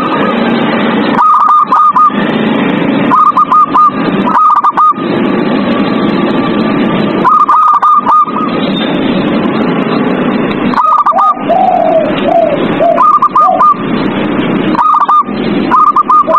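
Zebra doves (perkutut) cooing: bursts of three to five quick, high coo notes that come every second or two. A lower cooing phrase falls in pitch around the middle. A steady rough hiss lies under it all.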